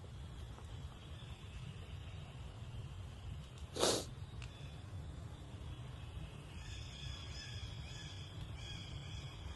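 A baby monkey gives one short, sharp snort about four seconds in, and thin, high-pitched squeaky calls come and go from about two-thirds of the way through. A steady low rumble runs underneath.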